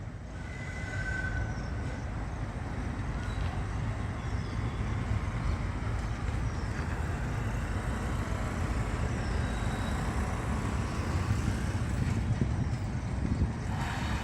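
ALCO diesel locomotive engine running with a low, steady chugging, growing louder over the first couple of seconds and then holding.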